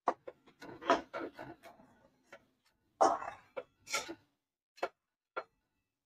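Metal spatula scraping and clinking against a kadai while stirring green peas into a thick masala gravy: two bouts of irregular scrapes and knocks, at the start and about three seconds in, then two single taps.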